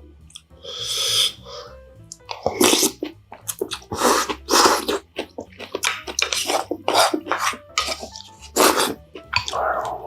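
Close-miked mukbang eating of bean sprout rice: a short breathy burst about a second in, then a run of sharp, wet chewing and crunching noises.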